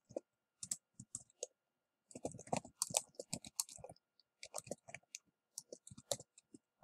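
Typing on a computer keyboard: irregular key clicks, with a quick flurry of keystrokes in the middle.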